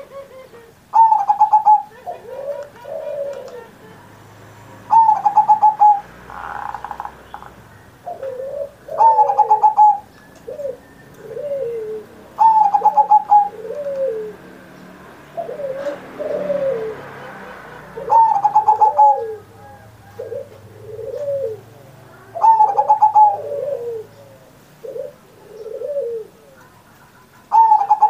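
Zebra dove (perkutut) singing its cooing song again and again. Each phrase opens with a loud, rapidly pulsed note and runs into a string of lower, softer coos, and the phrase comes round every four to five seconds.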